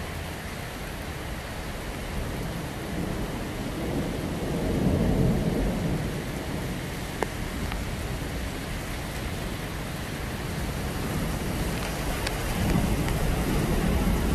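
Heavy rain falling steadily, with a low rumble that swells twice, about five seconds in and again near the end, and a single sharp click about halfway.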